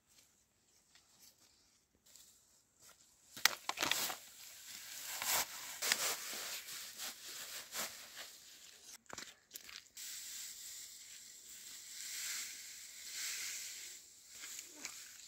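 Dry grass rustling and tearing as it is ripped from the ground and gathered in armfuls. Quiet at first, it starts about three seconds in with sharp crackles, then goes on as a steadier rustle.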